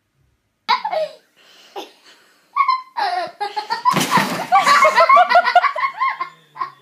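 People laughing hard, starting suddenly about a second in, with a short noisy burst about four seconds in and a fast run of repeated laughs after it.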